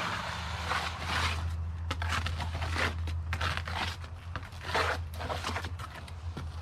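Repeated short scraping strokes, several a second in clusters, over a steady low hum.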